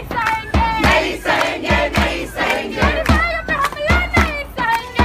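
A protest crowd chanting slogans in unison, shouted call-and-response style, to a hand drum beaten about twice a second.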